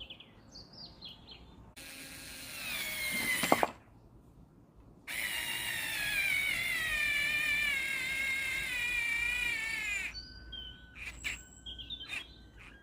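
Bosch electric screwdriver driving a screw in two runs: a short one of about two seconds whose motor pitch drops sharply as it ends, then a longer one of about five seconds whose pitch wavers and sags as the motor strains under load. It only just manages to get the screw in. Birds chirp before and after.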